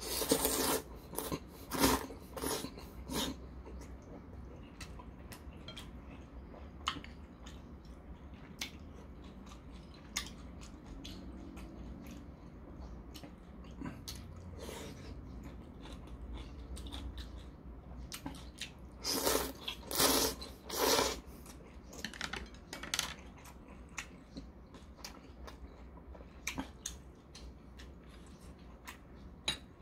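A man slurping udon noodles in several loud runs over the first three seconds, then chewing, with occasional small clicks. A second burst of loud slurps comes about nineteen to twenty-one seconds in.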